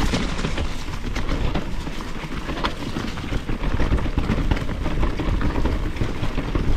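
Mountain bike riding over a root-covered trail: a continuous rumble of tyres on the ground, broken by frequent knocks and rattles from the bike as it hits the roots.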